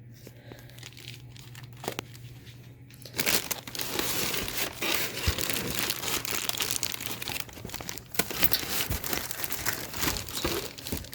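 Packaging being handled while ceiling-fan parts are taken out of their box. Quiet rustling at first, then from about three seconds in loud, continuous rustling with many small clicks.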